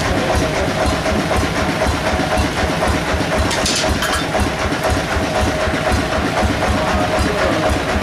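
Log bandsaw mill machinery running unloaded: a steady hum over a fast, even low throb. A brief hiss comes in about halfway through.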